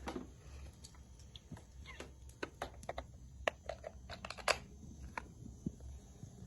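Scattered light clicks and taps at an uneven pace, as a sewing machine is handled and set up. They are not the steady run of the machine stitching.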